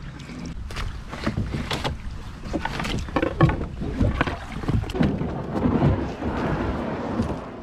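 Aluminium-coloured canoe grounding on a rocky, stony shore: irregular knocks and clatters of the hull, paddle and boots on loose stones as the paddlers climb out, with a longer scrape of the hull over the stones about six seconds in.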